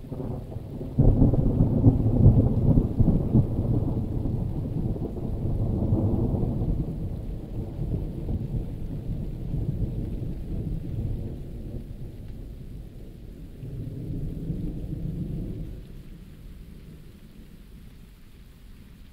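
Rolling thunder over steady rain: a deep rumble breaks suddenly about a second in, rolls on and slowly dies away, swelling once more near the end before fading.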